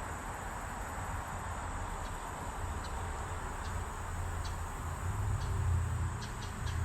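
Steady rushing noise of flowing creek water, with a low rumble that swells about five seconds in.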